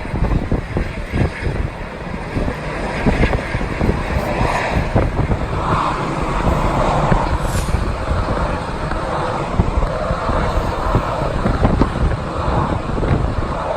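Strong gusts buffeting the microphone in a loud, uneven rumble. Beneath them runs the steady rush of a jet airliner's engines, which grows louder from about five seconds in.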